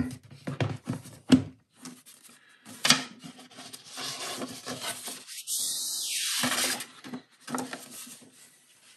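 Paper and card being handled: light taps and knocks of a card folder against a clamshell box. Near the middle comes a longer rubbing of paper sliding against card as a certificate is drawn from the folder.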